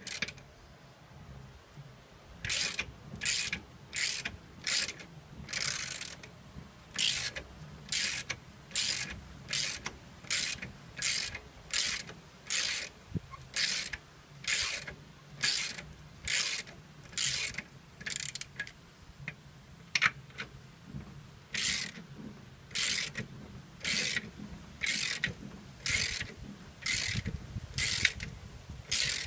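Hand ratchet wrench clicking in short, regular strokes, about one a second, with a brief break about two-thirds of the way through.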